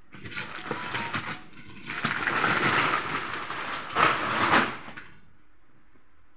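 Sacks and plastic bags being shifted and dragged about by hand, a rustling, scraping noise in surges with a few knocks, stopping about five seconds in.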